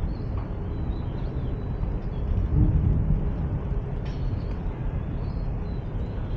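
Steady low rumble of road traffic, swelling briefly about halfway through, with a few faint bird chirps over it.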